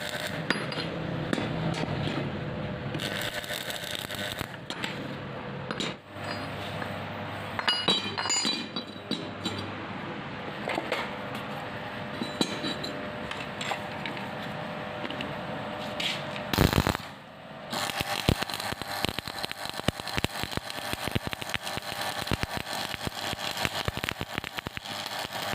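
Arc welding on scrap steel: a steady crackle of the arc, mixed with the clink of metal pieces. About two-thirds of the way in, a short louder burst stands out.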